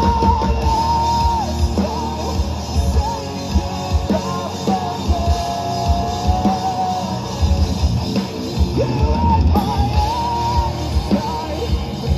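Live rock band playing: drum kit and distorted electric guitars, with a long held melody line that bends in pitch over them.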